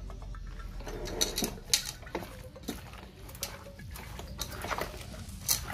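A hand mixing raw mutton pieces with sliced onions, green chillies, turmeric and ginger-garlic paste in an aluminium pot: irregular squelching and rustling of the onion layers and meat.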